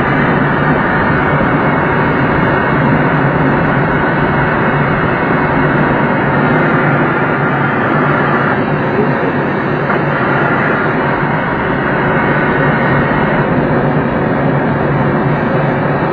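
Steady rushing airflow around a glider's cockpit canopy in flight, loud and unbroken, while the glider is on aerotow behind a light tow plane.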